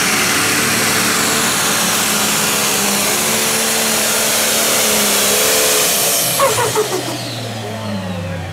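Pro Stock pulling tractor's turbocharged diesel engine running flat out under load as it drags the sled. About six seconds in, the run ends: the engine note falls and winds down to a lower, quieter running speed.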